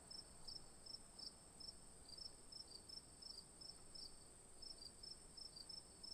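Faint crickets chirping: a steady high trill under short, high chirps repeating several times a second.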